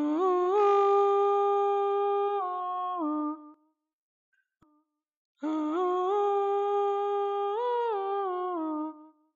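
A cappella vocal humming from an Arabic nasheed, with no instruments: two long hummed phrases of held notes that step gently up and down, separated by about two seconds of silence.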